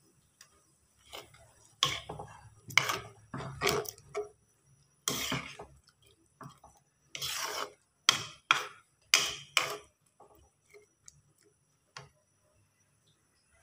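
A white spatula stirring thick dhal curry in a metal pan, scraping the pan in a run of about ten short strokes, with one more stroke near the end.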